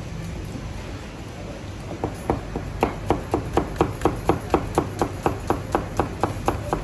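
Rapid, evenly spaced knocking strikes, about four a second, each with a brief ringing tone, starting about two seconds in.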